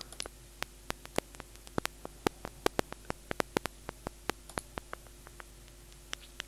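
Synthesized clicks from a Vital soft-synth patch, sounding at random uneven intervals like crackling, thickest in the middle and thinning out toward the end, over a faint steady hum. It is an early stage of a paper-crumpling sound effect built from randomized clicks.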